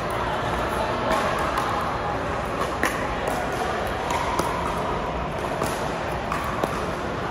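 Pickleball rally: paddles hitting the hollow plastic ball in a string of sharp pops about a second apart, over steady background noise.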